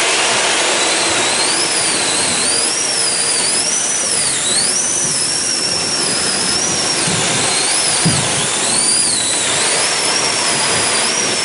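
Traditional theatre sound-effect machines played together: a steady rushing hiss from the wind and rain effects, with a high whining whistle wavering up and down over it.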